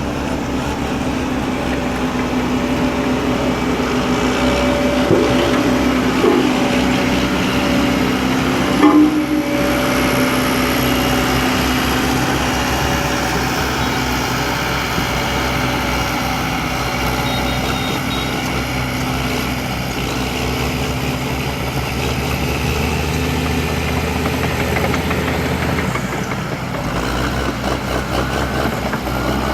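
A vehicle engine running steadily, with a few short knocks along the way.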